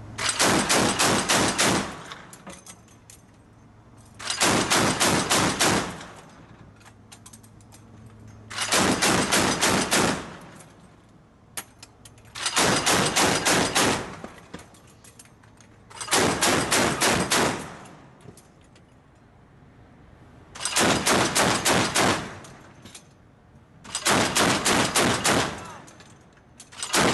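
Mk 38 25 mm naval gun, an M242 Bushmaster chain gun, firing on automatic in short bursts of several rounds each. Eight bursts, one every three to four seconds, with the last starting near the end.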